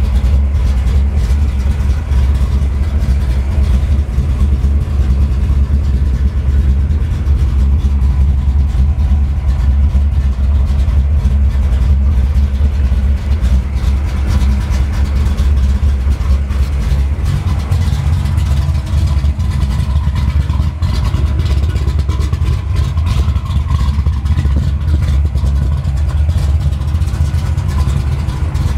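Ford Mustang SVT Cobra R's V8 engine idling steadily, with a deep, even rumble.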